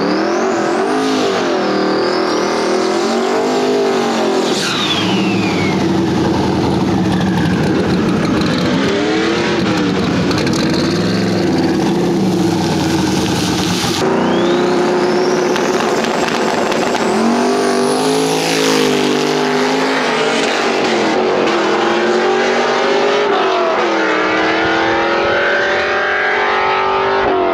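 Drag-racing cars' engines revving and accelerating hard down the strip, the engine note climbing and dropping again and again through the gears. A high whine sweeps up in pitch over several seconds about halfway through.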